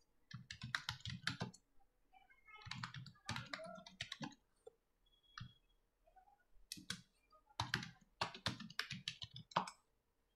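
Faint keystrokes on a computer keyboard, typed in several quick bursts as a search query is entered.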